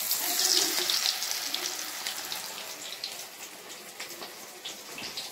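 Hot oil in a kadhai sizzling as batter-coated banana flower pieces go in for pakoras. The hiss sets in suddenly, is loudest in the first second and then slowly dies down.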